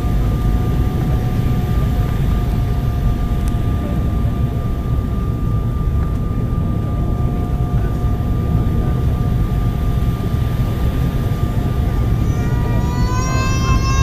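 Steady cabin noise of an Embraer 190 on approach, flaps extended: the low rumble of its GE CF34-10E turbofans and airflow, with two steady whining tones. Near the end a higher whine with several pitches sets in and bends up and down.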